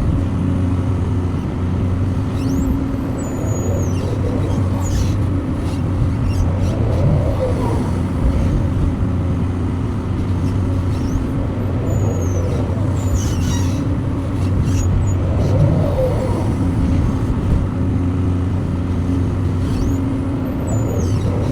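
Excavator's diesel engine running steadily while it works loading, with a few short high-pitched sounds over it now and then.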